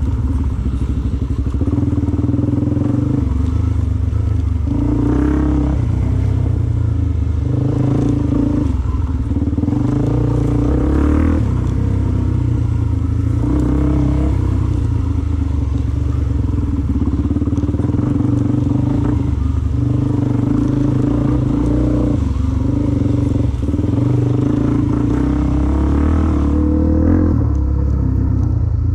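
Off-road motorcycle engine being ridden, its pitch climbing and dropping again and again as the throttle is opened and closed.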